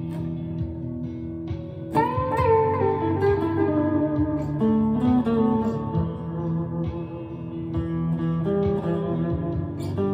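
Chapman ML3 Pro Traditional electric guitar with Seymour Duncan Hot Tele pickups played slowly in an ambient style: sustained, overlapping ringing notes. About two seconds in, a louder note is struck and bends down in pitch as it settles.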